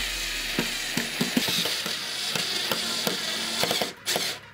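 Electronic dance music with fast, irregular percussive clicking.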